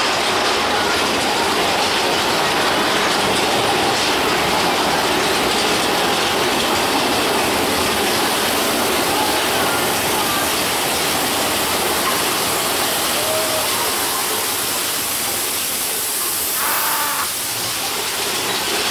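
Big Thunder Mountain Railroad mine-train roller coaster rolling along its track, heard from a seat on board: a steady, unbroken rush and rumble of wheel and track noise.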